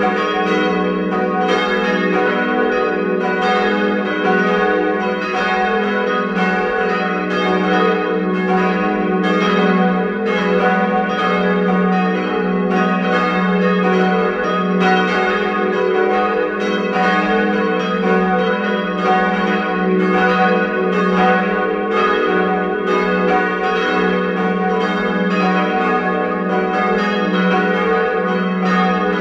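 Full peal of four swinging church bells, cast in 1981 by Rudolf Perner and tuned F♯–G♯–B–D♯, all ringing at once. Their strokes overlap in a steady, unbroken ring over a deep hum.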